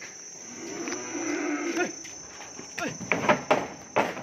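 A cow mooing once, a low drawn-out call. About three seconds in comes a burst of sharp knocks and clatter, the loudest sounds here, as cattle are hauled into a livestock truck.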